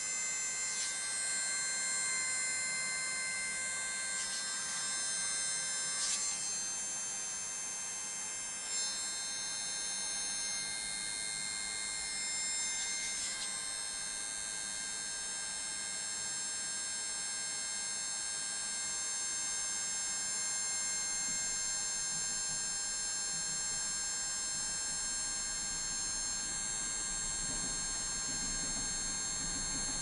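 Electric hot air blower running steadily with a high motor whine, heating an iPod Nano's frame to soften the screen adhesive.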